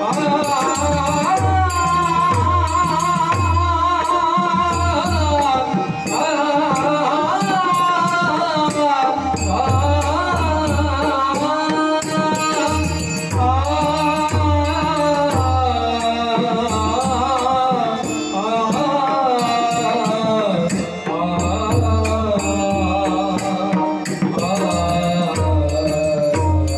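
Marathi devotional bhajan: a male singer sings long, wavering ornamented phrases of the chant over a steady harmonium drone, with regular hand-drum strokes keeping the beat.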